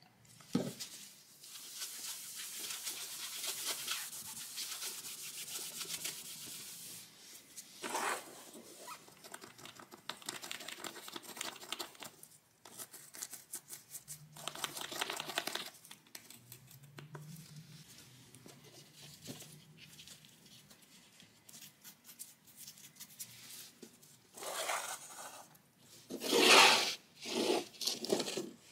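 A cloth rubbing back and forth over a laminate floor for several seconds, followed by scattered small handling noises. A few louder scraping rustles come near the end.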